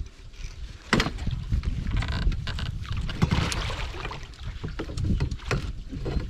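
Water splashing and sloshing against a boat, with scattered knocks and clatter, as a large flathead catfish is worked alongside toward a landing net.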